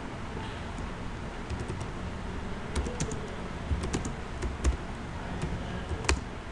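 Typing on a computer keyboard: irregular key clicks that start about three seconds in, over a steady low hum.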